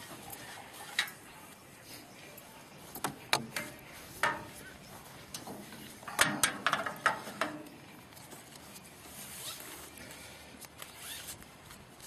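Ratchet tie-down strap and its metal S-hooks being handled and attached: scattered clicks and knocks, with a quick run of clicks about six to seven seconds in.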